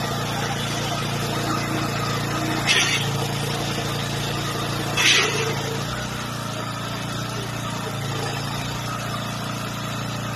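Small gasoline engine driving a portable water pump, running steadily as it draws water out of a flooded pit through a suction hose; its pitch dips slightly about halfway through. Two short bursts of hiss stand out, about three and five seconds in.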